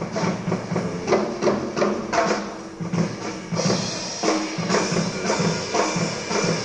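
Live jazz band recording, with sharp drum and cymbal hits falling in a quick, even rhythm over sustained instrumental notes.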